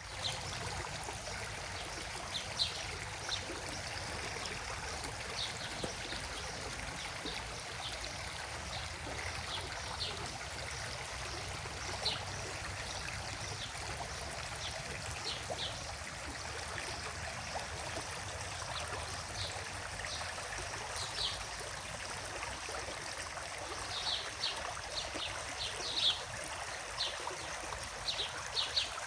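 A stream flowing steadily with a continuous trickling rush. Short high chirps sound over it now and then, coming more often near the end.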